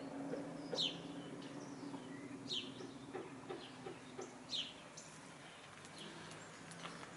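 Brown laying hens giving short, low clucks, with three high, falling chirps about two seconds apart.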